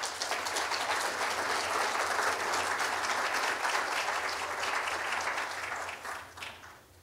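Audience applauding: many hands clapping together, steady for several seconds, then dying away near the end.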